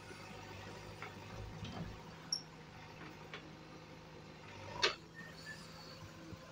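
JCB 3DX backhoe loader's diesel engine running steadily, with scattered light clicks and knocks from the arm and bucket as it swings back toward the pit. A sharper clank stands out about five seconds in.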